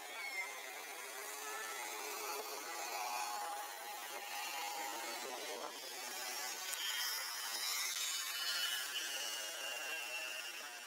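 Steady outdoor background hiss, with a few faint high chirps in the second half.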